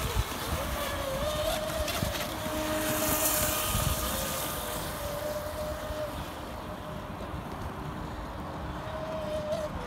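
Large radio-controlled monohull race boat running flat out: a steady motor whine with hissing spray, loudest about three seconds in, then fading as the boat moves off.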